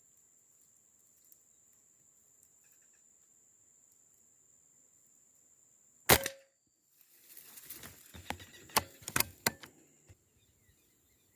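A Beeman 1336 PCP air rifle in 5.5 mm fires once about six seconds in, a single sharp crack. A few seconds of rustling with several sharp clicks follow.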